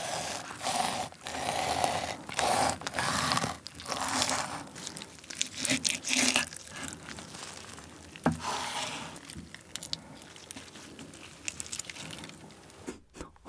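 Chef's knife slicing through a whole raw salmon fillet: a run of irregular slicing strokes for about seven seconds, then a single sharp click about eight seconds in, followed by fainter handling sounds.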